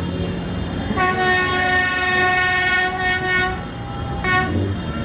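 A bus's multi-tone air horn blaring steadily for about three seconds, with a short dip partway through, then cutting off; honking in celebration of a school team's win.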